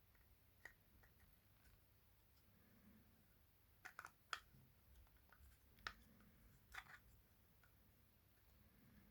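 Near silence with a few faint, sharp clicks, a cluster of them about four seconds in and single ones near the start and later on.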